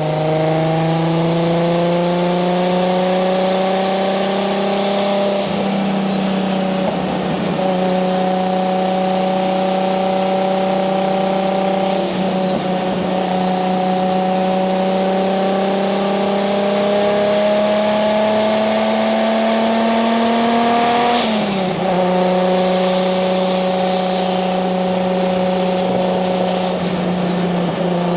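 Nissan 240SX's swapped single-turbo 1JZ VVTi inline-six running under load at a steady, mid-range engine speed. Over it a high turbo whistle climbs as boost builds and falls away when the throttle is lifted, about four times. The sharpest climb comes about three quarters of the way through and cuts off suddenly.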